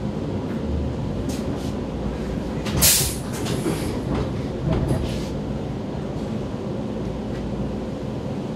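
Interior of a Vienna U-Bahn train standing at a station: a steady low hum from the car's equipment. A short, loud burst of hiss comes about three seconds in, with a few light clicks and knocks around it.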